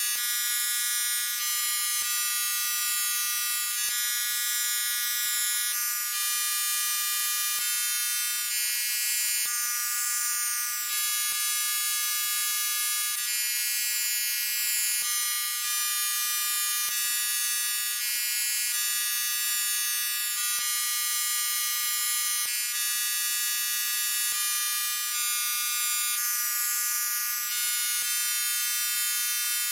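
Synthetic tinnitus relief sound: a bed of many steady high-pitched tones with nothing low, some tones dropping out and returning every few seconds. Quick repeating chirping sweeps sit high above them, with a faint tick about every two seconds.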